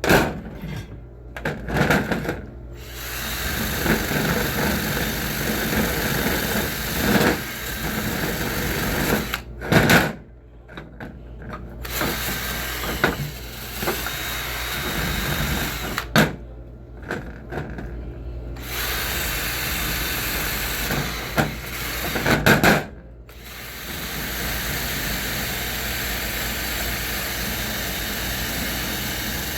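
Power drill spinning a wire brush against the rusty metal of a bench vise, scrubbing in long stretches and stopping and restarting several times.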